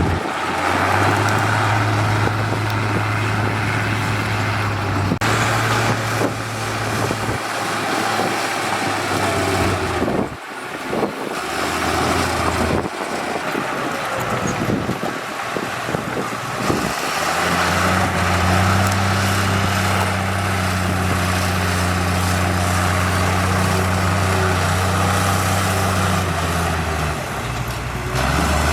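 Diesel engines of heavy road-construction machinery running steadily. About ten seconds in, the drone gives way to rougher, uneven machine noise, and a steady engine drone returns at about seventeen seconds.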